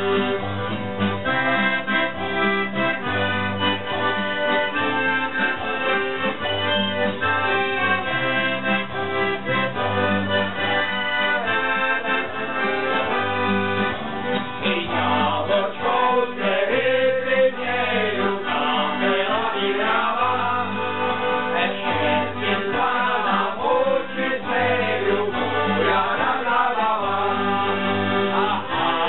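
Small folk band playing, led by accordion, with plucked double bass keeping a steady beat and a strummed acoustic guitar. The first half is instrumental, and men's voices join in singing from about halfway through.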